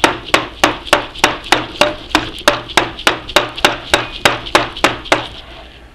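Brass hammer striking a drift held against the end of an Atlas 10F lathe headstock spindle: about eighteen sharp, even knocks, roughly three and a half a second, stopping near the end. The blows are meant to drive the stuck spindle out of the headstock, and it still does not come free.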